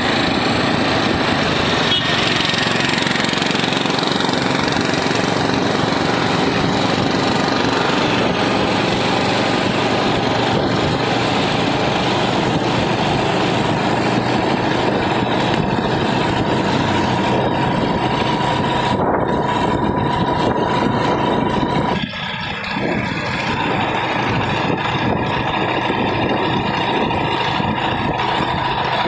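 Steady engine and road or traffic noise, with a thin steady whine through the middle that returns near the end; the sound changes abruptly about three-quarters of the way through.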